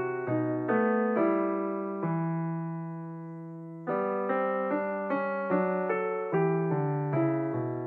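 Background piano music: a gentle run of struck notes and chords, with one chord left to ring and fade for about two seconds near the middle before the notes resume.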